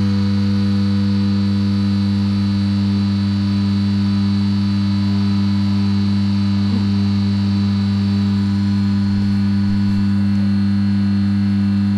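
Two-post vehicle lift's electric hydraulic power unit running, a loud, steady hum, as it pumps to raise the lift on its first test.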